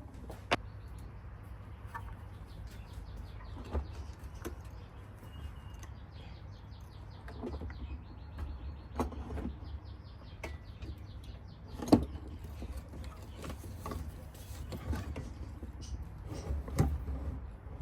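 Hand work on an electric scooter's rear wheel hub: scattered knocks and clicks of metal parts and tools, with a fast, even run of ticking or whirring for several seconds in the middle as screws are worked loose.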